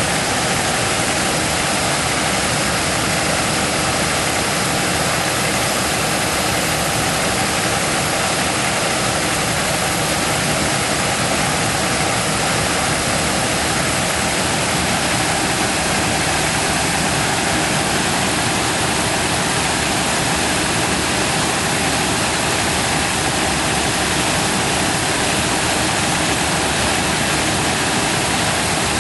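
Combine harvester running steadily while harvesting corn: a constant engine and machinery noise with no change in speed.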